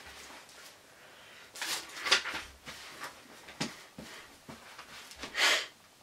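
A few short papery rustles as a thick hardback book is opened and its pages are turned.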